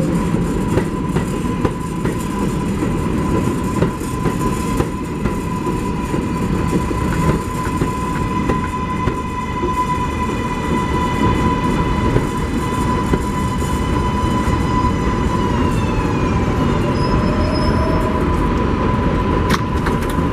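New York City subway train running through the station: a heavy rumble with wheels clicking over rail joints and a steady electric motor whine. About three quarters of the way through, a set of higher whining tones slides down in pitch.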